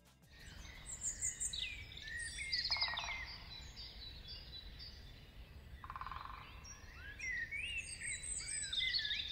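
Several songbirds chirping and twittering, many short calls sliding up and down in pitch, with two brief buzzy trills, over a faint steady low rumble of outdoor background noise.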